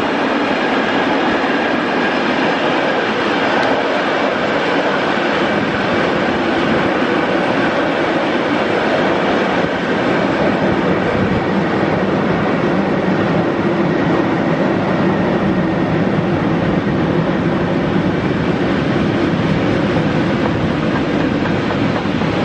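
Long freight train of enclosed car-transport wagons rolling past: a steady, loud rumble of steel wheels on rails, with a faint high whine running through it.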